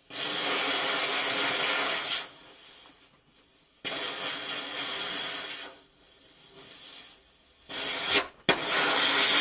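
Gas welding torch hissing in three bursts of about two seconds each, every one starting and cutting off sharply. About eight and a half seconds in there is a sharp pop, and then a steady hiss.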